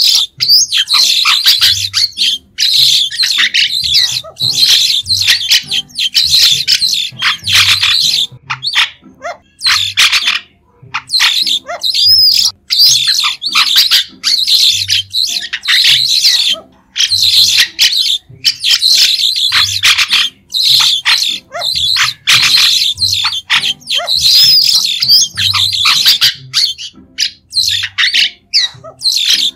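White-shouldered starlings calling: a dense, nearly continuous chatter of short, shrill, high notes in quick succession, broken by brief pauses about ten seconds in and again near the seventeen-second mark.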